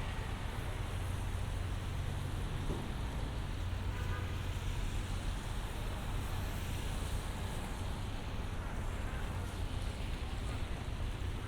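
Steady city street noise: traffic rumbling past with tyres hissing on wet pavement.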